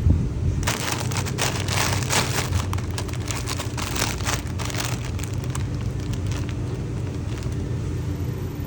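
Plastic packaging crinkling and rustling as it is handled, a run of quick irregular crackles that fades out about two-thirds of the way through, over a steady low hum.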